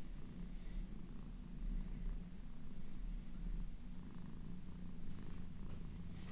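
Grey Scottish Fold cat purring steadily, a low continuous rumble, while it is stroked by hand.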